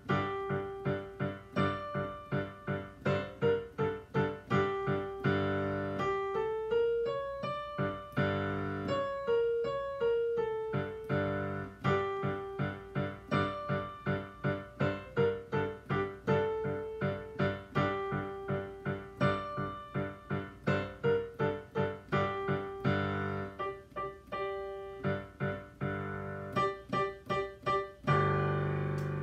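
Digital piano playing a simple beginner's piece in G position: short struck notes at a steady pulse with a brief melodic run in the middle. A low chord near the end is held and dies away.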